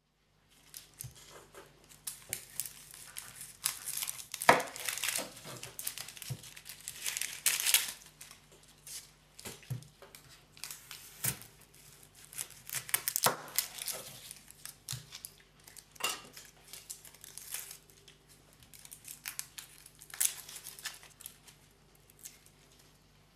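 Dry, papery onion skin crackling and tearing as it is peeled off with a kitchen knife on a wooden chopping board, with a few sharper knocks of the blade among the crackle.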